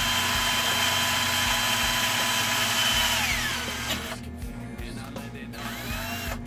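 King Power 16.8-volt cordless drill running at speed, its bit cutting through plain sheet metal with a steady high motor whine. About three seconds in, the whine falls in pitch as the drill slows, and the drilling stops about a second later.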